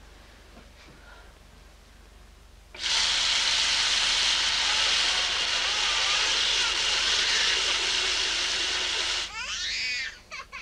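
A loud, steady rushing hiss starts suddenly about three seconds in and cuts off about a second before the end. It gives way to a wailing cry.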